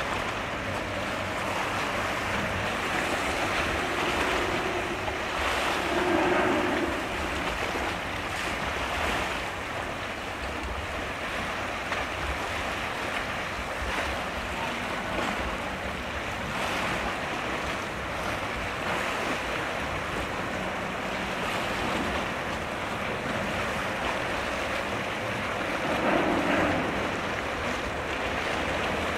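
Steady rush of wind on the microphone and water noise, with a low steady hum underneath. Two brief louder swells rise and fade, about six seconds in and again near the end.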